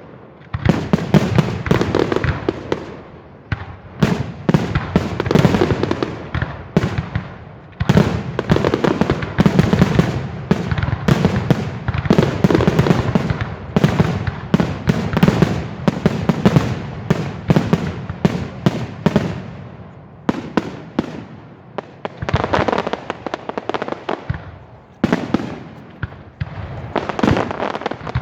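Fireworks display: a dense, continuous run of bangs and crackling, with brief lulls about four, eight and twenty-two seconds in.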